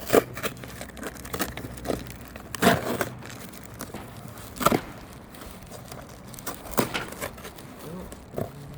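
A cardboard box and its plastic packing being pulled open and handled: crinkling and rustling, with several sharp crackles and knocks a couple of seconds apart.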